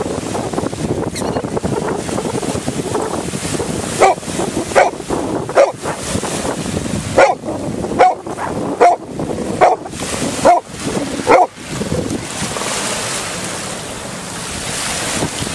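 A dog barking about nine times, roughly once a second, from about four seconds in until a little before the end, over steady waves breaking on a pebble shore and some wind on the microphone.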